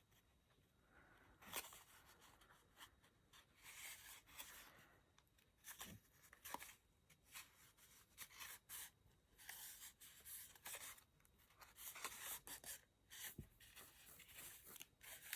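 Faint rustling and light tapping of stiff card being handled and pressed into place while pieces are glued together, with a few small clicks scattered through.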